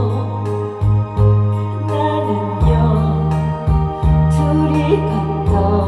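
A Korean pop ballad playing, with a steady beat and a bass line under a sung melody.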